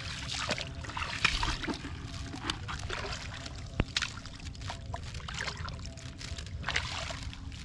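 Water trickling and splashing around a wet wicker basket trap being handled at a pond's edge, with scattered light clicks and knocks and one sharp click a little under four seconds in.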